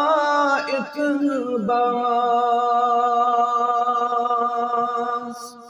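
A man's voice singing a chant with ornamented, wavering turns, then holding one long steady note from about two seconds in that fades away at the end.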